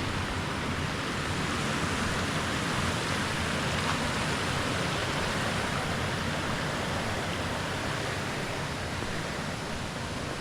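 Steady rushing of water pouring down the waterfall's cascades, an even noise that eases off slightly near the end.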